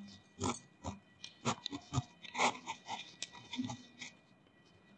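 Chalk on a blackboard as words are written: faint, irregular taps and short scratchy strokes.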